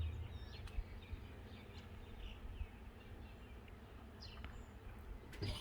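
Birds chirping outdoors: a few short, falling high-pitched chirps over a steady low background rumble.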